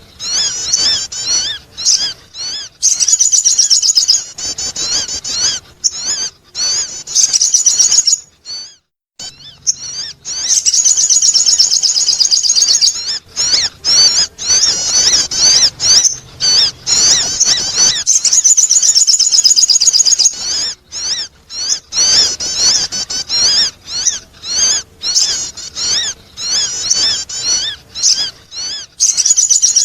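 Sogon bird calling: rapid, high-pitched chattering chirps in long runs broken by short gaps, with one brief pause about a third of the way through. It is a bird-lure call for attracting birds.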